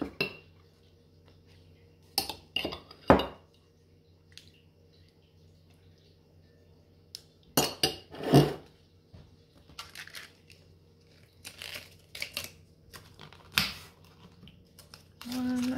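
A metal spoon clinking and scraping against a glass jar and small plastic portion cups as chunky applesauce is spooned out: a few sharp knocks with quiet gaps between, the loudest about three and eight seconds in.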